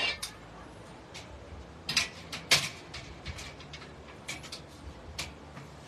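Sharp metallic knocks and clinks from the steel parts of a shelving rack being handled and fitted together: one right at the start, the loudest cluster about two to two and a half seconds in, and lighter taps after.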